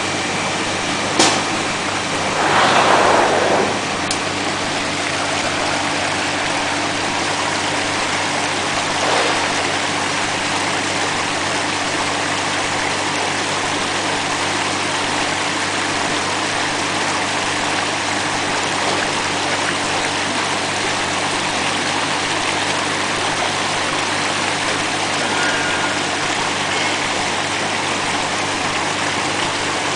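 YQX-650A vegetable washing machine running: a steady rush of churning water over a low motor hum, with a sharp click about a second in and a louder surge of water a moment later.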